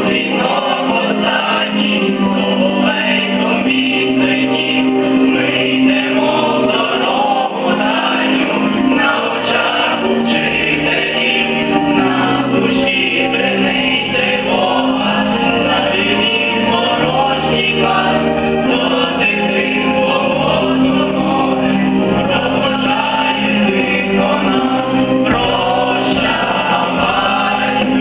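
Group of young men and women singing a song in unison, a mixed choir of voices with instrumental accompaniment and a bass line.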